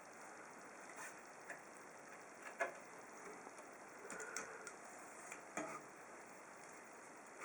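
A few faint, scattered light clicks and taps over a quiet room background, the sharpest click about two and a half seconds in and another about three seconds later.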